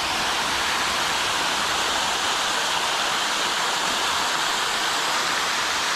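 Waterfall pouring steadily: an even, full rush of falling water onto rock.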